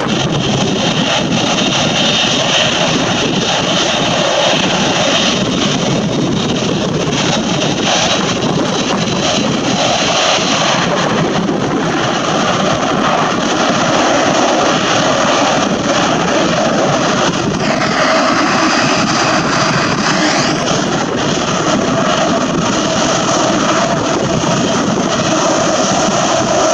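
Jet airliner's engines at takeoff power, a loud steady rushing noise. About eighteen seconds in, a hissing sweep falls and then rises in pitch as the aircraft passes.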